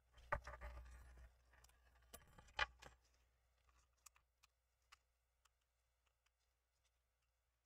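Faint handling noise of a laptop LCD panel being pried at with a thin tool: a rustle with a sharp click under a second in, another sharp click at under three seconds, then scattered light ticks.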